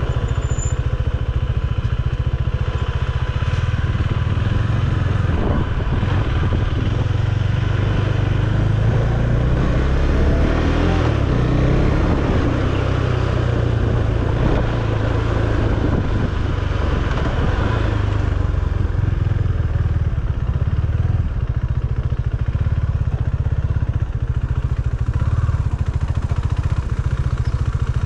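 KTM Duke 390's single-cylinder engine running steadily as the motorcycle is ridden at low speed, with a stretch of rougher, noisier sound through the middle.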